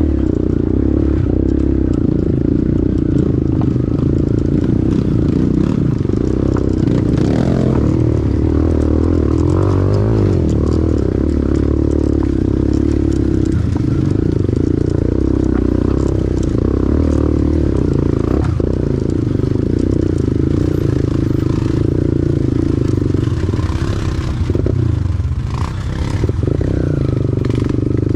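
Pit bike engine running, its revs shifting slightly up and down, with a few knocks about two-thirds of the way in and again near the end.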